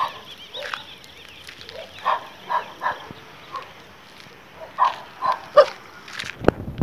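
Street dogs barking repeatedly in short, separate barks and small bouts: territorial dogs chasing off intruding dogs.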